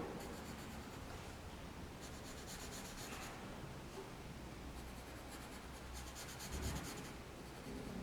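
Pencil drawing on paper, quiet scratching strokes in several runs with short pauses between them, and a soft bump about two thirds of the way in.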